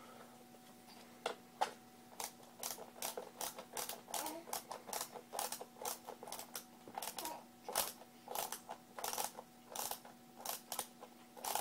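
Screwdriver driving a screw into the rocker's frame: a fast, even run of sharp clicks, about four a second, starting about a second and a half in.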